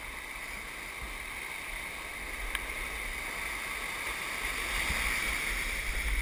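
Rushing whitewater of a river rapid, a steady hiss that grows louder toward the end, with a low rumble underneath.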